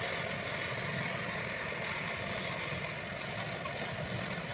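Handheld twin-nozzle gas brazing torch running on a screw-on gas canister, its flame hissing steadily while it heats a copper pipe joint to braze it.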